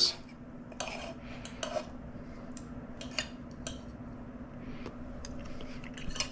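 Steel knife and fork cutting roasted chicken and potatoes on a stoneware plate: scattered clicks and scrapes of metal against the plate, a few each second.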